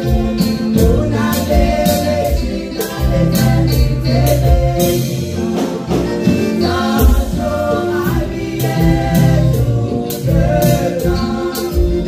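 A women's vocal group singing a gospel song in Haitian Creole together into microphones, over an accompaniment with a strong bass line and a steady drum beat.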